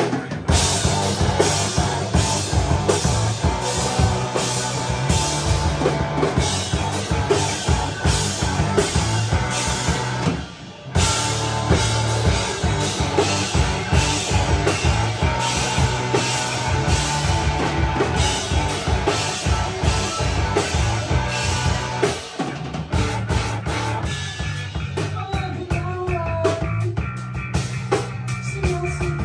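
Live rock band playing loud: electric guitar over a full drum kit keeping a busy, steady beat. The band stops for a moment about ten seconds in, and after about twenty-two seconds the drums ease off under a wavering guitar line.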